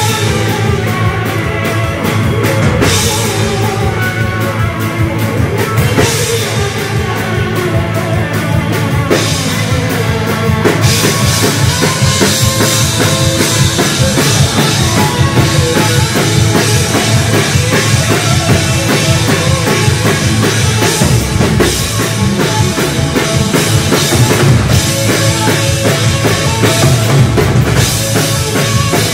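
Live rock band playing an instrumental passage: electric guitars, bass and an Emmons pedal steel guitar over a drum kit keeping a steady beat. The drums and cymbals get fuller and louder about eleven seconds in.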